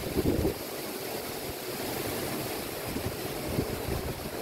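Tropical-storm wind buffeting the microphone in gusts, strongest just after the start, over the steady rush of heavy surf breaking against a sea wall.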